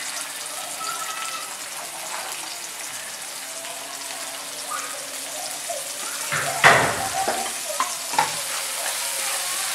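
Chopped onion sizzling in hot oil in a frying pan, a steady hiss. Near two-thirds of the way through, a wooden spatula stirs the onion with a louder scrape, then a shorter one.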